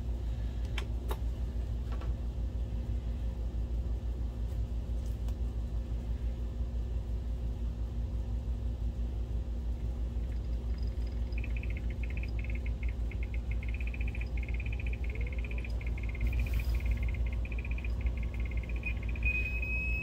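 Optoma HD28DSE DLP projector starting up over a low steady hum. About eleven seconds in, its colour wheel motor starts a fast, high chirping, which near the end settles into a steady high whine. The chirping is the sign of an unhappy colour wheel; the repairer puts it down either to a bad wheel or to a bent or cracked wire leaving not all of the motor's coils firing.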